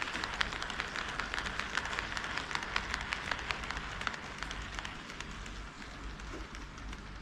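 HO scale model train running on sectional track: quick, irregular clicking of its wheels over the rail joints. The clicks thin out and grow quieter after about four seconds.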